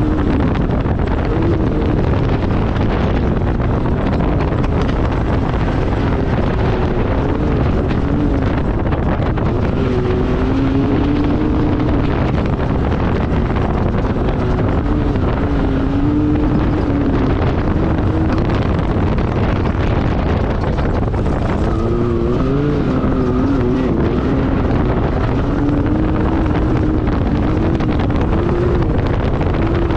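Can-Am Maverick X3 side-by-side's turbocharged three-cylinder engine running hard, its pitch rising and falling as the throttle comes on and off through whoops and turns, with wind buffeting the microphone.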